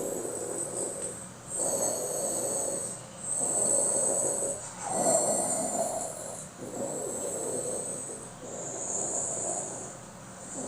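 Snore-like rasping noise, about six drawn-out swells of a second and a half each with short breaks between them.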